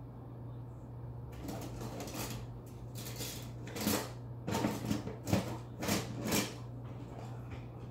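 Cockatoo cracking and crunching a peanut shell in its beak: a run of sharp crunches starting about a second and a half in, loudest between about four and six and a half seconds, then tailing off.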